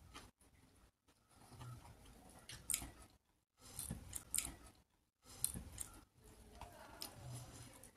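Close-up eating sounds: chewing with several sharp, wet mouth clicks, and fingers mixing rice and curry on a plate.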